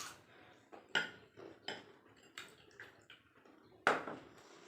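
Plates and utensils clinking and knocking on the table while puchka are eaten: about six short, sharp knocks, the loudest about a second in and again near the end.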